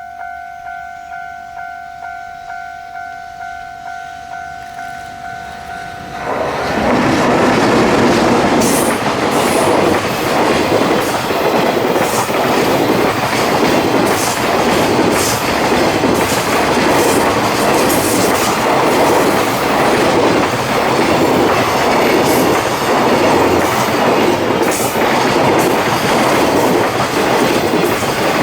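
Level-crossing warning bell ringing about twice a second with two steady tones. About six seconds in, an electric-locomotive-hauled container freight train arrives and passes over the crossing, its wheels clacking in a steady rhythm over the rail joints.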